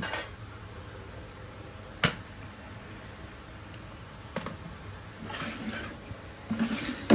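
Handling of cordless power tools: a few sharp clicks and knocks, the loudest about two seconds in, then soft rustling and shuffling near the end. No motor runs.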